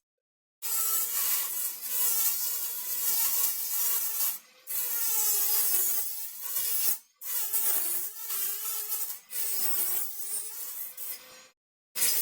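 Worx MakerX rotary tool spinning an abrasive cutting wheel through the thin aluminium of a heatsink. Its high motor whine dips in pitch and recovers again and again as the wheel loads up and binds in the cut, over a hiss of grinding, with a few short breaks in the sound.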